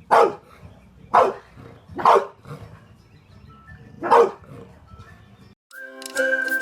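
A dog barking four times, single loud barks about a second apart with a longer gap before the last. Background music starts near the end.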